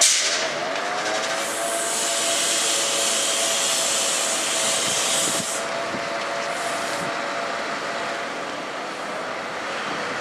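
Heavy tipper lorry pulling away: a sharp blast of air hiss at the start, then several seconds of hissing compressed air over the engine's steady drone and a constant whine, growing quieter near the end.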